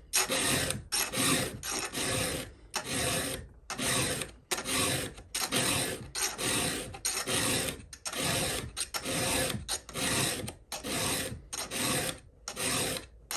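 Round chainsaw file rasping across a steel chain cutter in steady, even strokes, nearly two a second. The chain is badly rock-damaged, so each tooth takes many strokes to file back to sharp.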